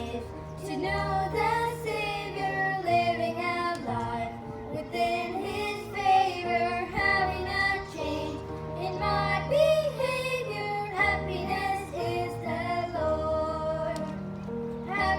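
A gospel song: a high voice singing a melody over steady instrumental accompaniment with held bass notes.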